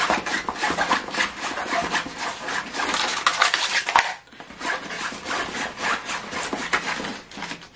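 Clear plastic wrap crinkling and rustling around a rolled diamond painting canvas as hands grip and twist it, with a brief lull about four seconds in.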